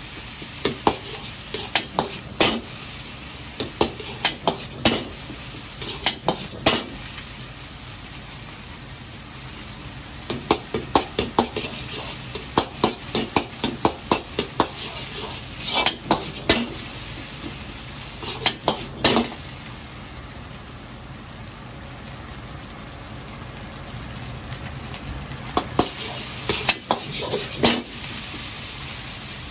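Stir-frying in a wok: a steady sizzle of food in hot oil, with quick runs of sharp knocks and scrapes of a metal ladle against the wok that pause now and then.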